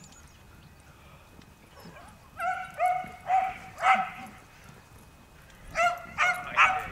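Dog yapping in short, high-pitched barks: a run of about four about two and a half seconds in, then three more near the end.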